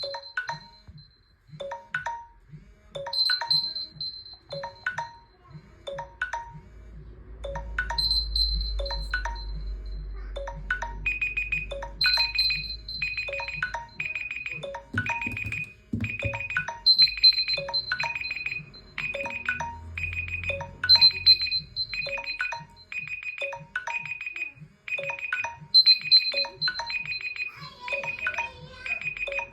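Smartphone alarm or timer tone ringing: a repeating electronic melody with a note about every half second and a higher chime every four to five seconds. About a third of the way through, a higher beep joins each note.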